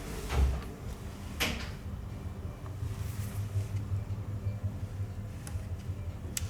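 Handling knocks on a repair bench: a dull thump about half a second in, a sharp click about a second later, then a few faint ticks near the end over a low steady hum.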